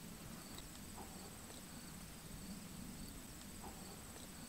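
Faint outdoor quiet with a steady high insect drone, like crickets or grasshoppers, and a couple of soft ticks.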